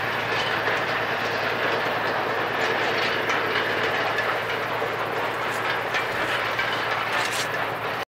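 Narrow-gauge steam train of Cumbres & Toltec locomotive 484, a K-36 2-8-2, running along the track: a steady rumble and rattle of the train, with a few sharp clicks near the end. The sound cuts off suddenly at the end.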